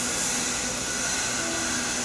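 Shielded metal arc (stick) welding with an E7018 low-hydrogen rod: the arc burns with a steady, even hiss while the cap pass is laid on a header.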